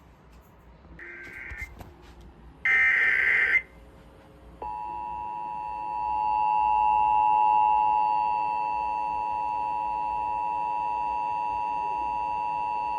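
Emergency Alert System test tones: the screechy digital SAME header bursts, a faint one about a second in and a loud one about three seconds in, then the steady two-tone EAS attention signal held for about eight seconds.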